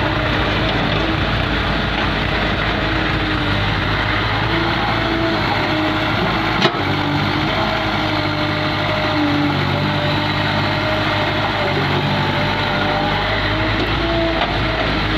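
Diesel engine of a Caterpillar 365C hydraulic excavator running steadily, its note shifting slightly as load comes and goes, with a single sharp click about six and a half seconds in.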